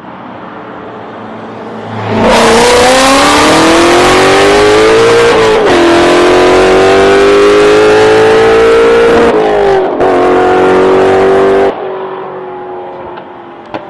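Twin-turbocharged Ford Mustang GT350's 5.2-litre flat-plane-crank V8, very loud. It idles at first, then goes to full throttle about two seconds in, its pitch climbing through two upshifts. The throttle is shut abruptly near the end, leaving a lower, steady running sound.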